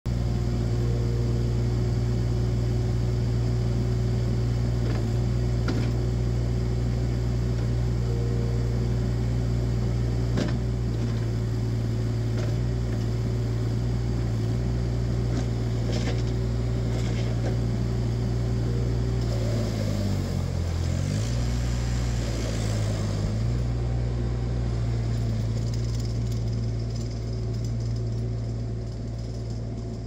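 2018 ASV RT30 compact track loader's 32 hp diesel engine running steadily, with a few light clanks. About twenty seconds in its note dips briefly and recovers, and it grows fainter near the end as the loader drives away.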